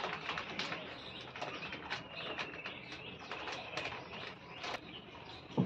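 Plastic packet crinkling and rustling as it is handled, in quick irregular crackles, with birds calling faintly in the background.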